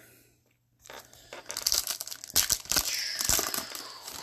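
Foil wrapper of a Topps WWE NXT trading-card pack crinkling and tearing as it is opened by hand. It starts about a second in as a dense run of crinkles and small clicks.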